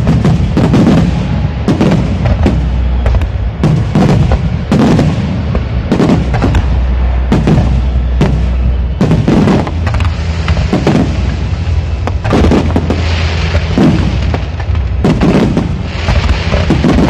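A fireworks display in full barrage: aerial shells bursting loudly, about one boom a second, with stretches of hissing crackle in the second half.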